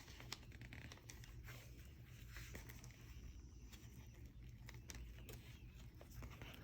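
Faint paper handling: soft rustles and light clicks as the pages and tucked-in pieces of a handmade junk journal are turned and moved, over a low steady hum.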